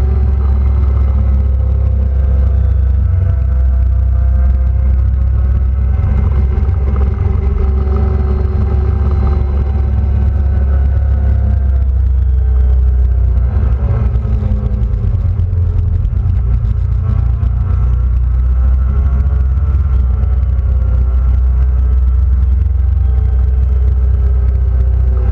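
Quad bike (ATV) engine running on the move, heard from the bike itself over a heavy low rumble; its pitch falls and rises with the throttle, dipping and climbing again about halfway through.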